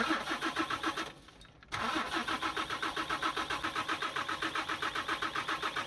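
Isuzu 6HK1 diesel engine cranked on the starter motor with an injector line loosened to bleed air from the fuel system. A short crank of about a second, a brief pause, then a long steady crank with a fast, even rhythm.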